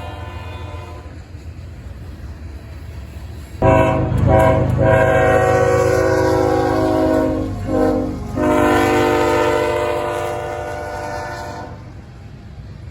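Amtrak Auto Train's lead GE Genesis diesel locomotive sounding its horn: one blast fading out, then a long blast, a short one and another long one, the close of the long-long-short-long grade-crossing signal. Under it runs the steady low rumble of the train on the rails.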